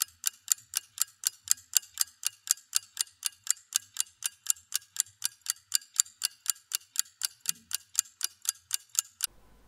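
Steady, even ticking, about four ticks a second, that stops just before the end.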